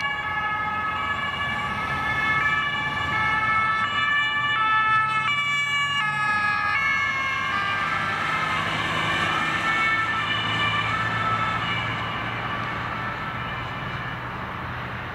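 German police two-tone sirens (Martinshorn) of two police cars, each switching back and forth between two pitches, overlapping, with road noise underneath. Around the middle the tones blur and slide as the cars pass, then the sirens slowly fade as they drive away.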